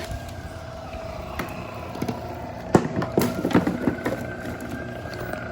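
Wire stripping machine running with a steady whine and a higher tone that rises and then falls in pitch, while wire is fed through it. A cluster of sharp clicks and knocks comes about three seconds in.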